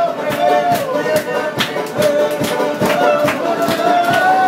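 Live banjo music with a steady beat of about three strokes a second and a held, wavering melody line over it.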